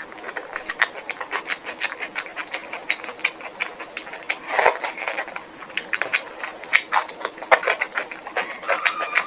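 Close-miked chewing of crunchy food: a rapid, irregular run of crisp crackling crunches.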